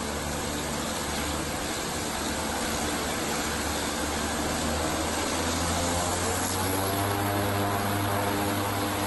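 Twin-engine turboprop's engines and propellers running steadily as it lines up for takeoff, a drone with a hum that slowly grows louder and rises slightly in pitch from about six seconds in as power comes up.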